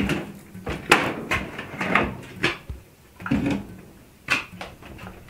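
Irregular knocks and clatter of hands-on work as sheets of aluminium flashing are fitted and screwed over a wooden frame, over a steady low hum.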